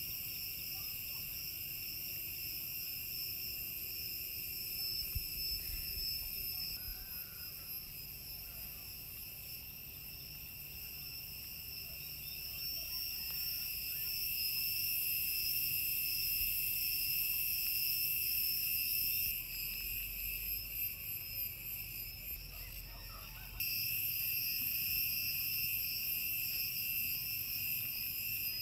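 Steady, shrill insect chorus with a faint low rumble underneath. It drops away briefly about two-thirds of the way through and comes back abruptly near the end.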